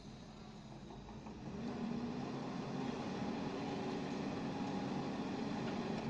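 JCB wheel loader's diesel engine running, getting louder about a second and a half in and then holding steady, as the loader pushes its bucket into a pile of earth and bricks.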